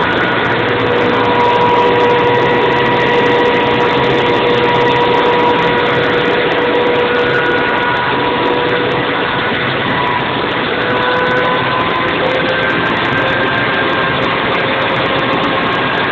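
Ferguson Hydrovane compressor, a rotary-vane type, running up to speed on a temporary belt with a steady whistle over the mechanical din. The whistle's pitch sags a little about ten seconds in, then climbs back. Running-in oil has been put in to free the compressor up.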